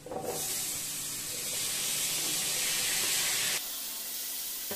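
Chopped tomatoes sizzling as they are tipped into hot oil in a frying pan: a steady hiss that drops off sharply to a softer sizzle about three and a half seconds in.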